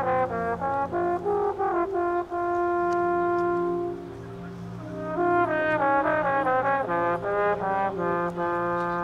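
Marching band brass section playing: a quick run of notes into a held chord, a brief softer passage, then another quick run ending on a held note, with low steady tones underneath.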